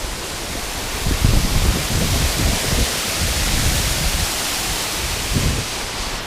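Wind rushing over the microphone of a riding cyclist's camera, a loud steady hiss with gusty low buffeting, mixed with the rumble of bike tyres on the trail.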